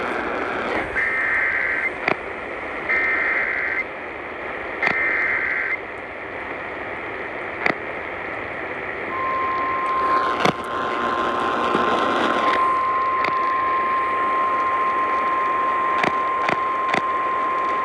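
Emergency Alert System activation heard over AM radio: three roughly one-second bursts of warbling SAME header data tones, then about nine seconds in a single steady alert tone (the 1050 Hz NOAA Weather Radio tone) that holds to the end. Radio static with sharp crackles runs underneath, with a louder rush of hiss for a couple of seconds around the start of the tone.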